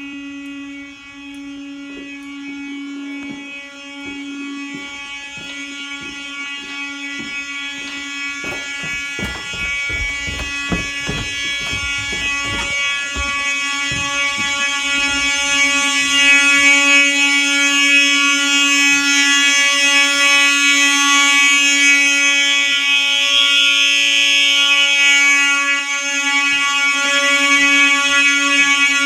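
Fire alarm horn strobes sounding a continuous, steady buzzing horn tone, set off by the alarm panel's fire drill mode; it gets louder over the first half. A few seconds of knocks and thumps come partway through.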